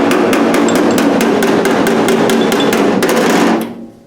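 Body hammer tapping rapidly on a sheet-metal car body panel, about six or seven light blows a second with a metallic ring, stopping near the end. It is the hammer-and-pull step of dent repair: the high metal around the dent is knocked down while the low spot is pulled out.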